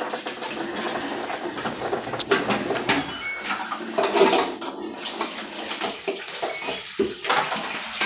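LG top-load automatic washing machine running on spin, water rushing and sloshing in the tub with a few sharp knocks; the noise comes from deep inside the machine.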